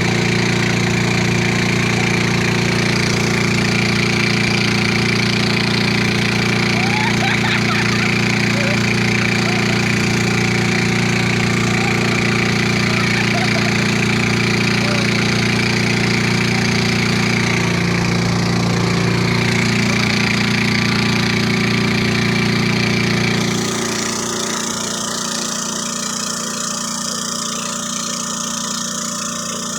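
Motorboat engine running steadily at speed, then throttling back about 23 seconds in to a quieter, lower idle.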